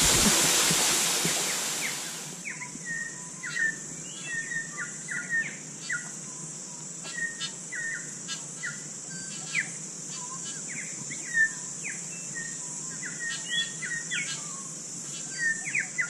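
Waterfall rushing, fading out over the first two seconds. It gives way to birds chirping: short, quick rising calls every second or so, over a steady high-pitched hiss.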